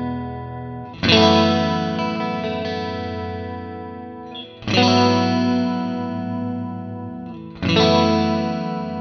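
Fender Stratocaster electric guitar through a MOOER GE200 multi-effects unit on its "SWEETY" preset. Three chords are struck, about a second in, at about four and a half seconds and near the end, and each is left to ring and slowly fade.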